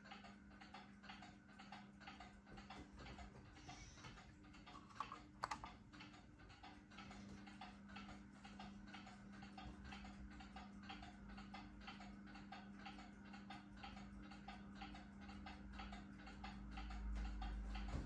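Casablanca ceiling fan running with a steady motor hum and a rhythmic ticking of about three ticks a second; the owner says its ball bearings are bad. A single sharp click comes about five seconds in, and a low rumble builds near the end.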